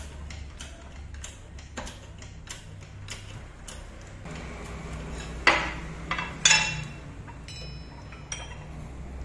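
Shop press working a steel drift into the bearing housing of a Yamaha scooter's fork yoke: faint regular ticking over a low hum, then a sharp metallic crack about five and a half seconds in and a ringing clank a second later, followed by a few light clinks of the steel parts being handled.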